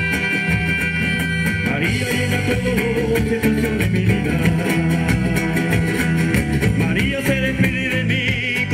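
Live band playing an Andean-style folk song with guitars, electric bass and drums. A quena flute holds a long high note for about the first two seconds, and a wavering violin melody comes in near the end.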